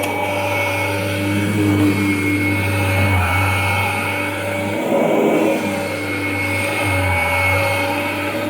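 1994 Kirby Generation 4 upright vacuum running steadily, its motor giving a steady hum and whine. The drive belt doesn't sound bad.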